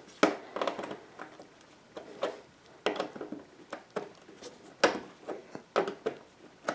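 Pliers clicking and scraping on a copper rivet head as it is squeezed and crushed in toward the middle, in a series of irregular short, sharp clicks.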